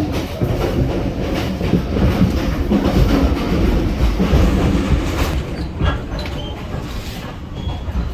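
Sleeper train in motion: a heavy low rumble with the wheels clattering over the rail joints and the carriage rattling, easing off a little about five seconds in.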